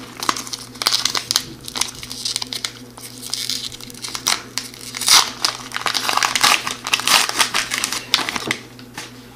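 Foil wrapper of an O-Pee-Chee hockey card pack being torn open and crumpled by hand: irregular crinkling and crackling, busiest in the second half.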